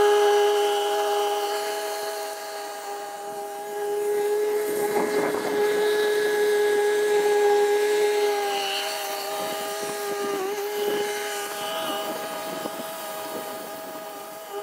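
John Deere 1025R compact tractor's three-cylinder diesel engine running steadily while it drives an offset flail mower through tall grass: an even-pitched drone from engine and mower rotor. It grows fainter toward the end as the tractor moves away.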